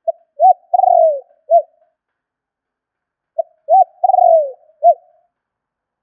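Spotted dove cooing: two matching four-note phrases about three and a half seconds apart, each a short note, a rising-and-falling note, a longer note that slides down in pitch, and a short closing note. It is the advertising call of a caged decoy dove, used to draw in wild doves.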